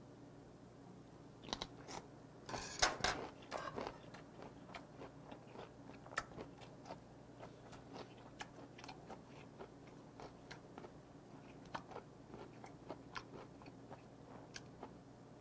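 Close-miked mouth sounds of a person chewing blanched gaedureup greens and tomahawk steak: scattered wet chewing clicks, with a denser run of louder crunchy clicks about two to four seconds in.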